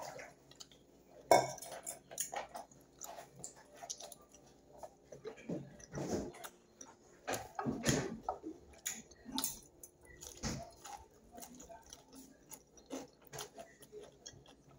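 Fingers gathering food on a glass plate, with scattered clicks and taps on the glass, a few louder ones about a second in and around the middle, mixed with chewing.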